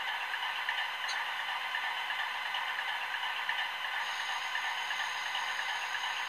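Piko sound decoder in a model BR 232 diesel locomotive playing its diesel-engine idling sound through the model's small speaker, steady and tinny. A faint high whine joins about four seconds in.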